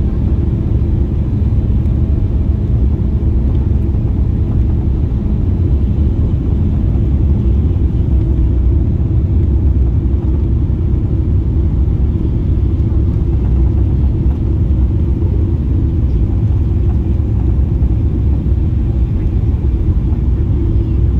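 Steady low rumble of a Boeing 777-300ER airliner, its engines and airflow heard from inside the passenger cabin, with no sudden changes.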